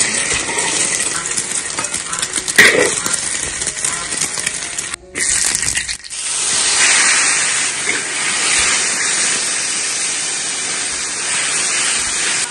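Mushrooms frying in hot oil: a steady, dense sizzle, with one sharp clink about two and a half seconds in. The sizzle breaks off briefly around five seconds in.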